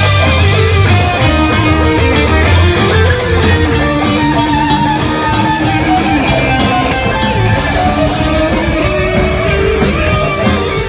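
Heavy metal band playing live and loud: electric guitars over bass guitar and a steady drum beat.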